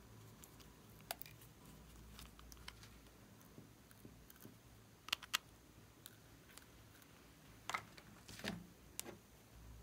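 A few small sharp clicks and taps of plastic as caps are pulled off and small plastic makeup containers are handled, the loudest pair about five seconds in, over a quiet room hum.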